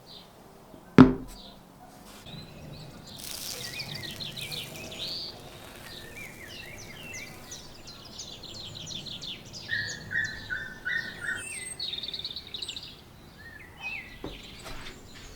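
A single sharp knock about a second in, followed by birds chirping and singing in quick runs of short, high, repeated notes through most of the rest.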